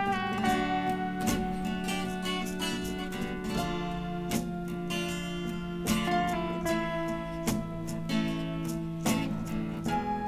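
Instrumental break of a song: acoustic guitar strummed in a steady rhythm over held notes, with no singing.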